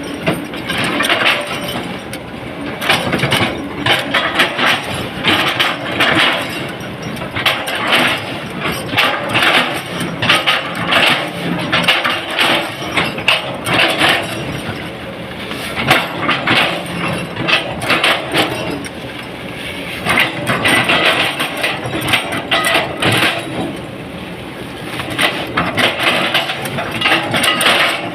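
Hydraulic excavator at work: the engine runs steadily under a dense, irregular clatter of metal and stone, easing off briefly a couple of times.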